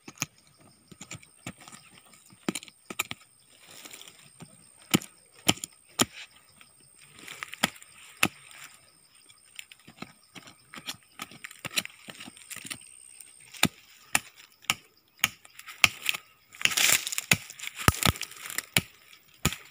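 A metal blade chopping and scraping into dry soil and roots while digging around a tree's base: a string of sharp, uneven knocks with gritty scraping, busiest near the end.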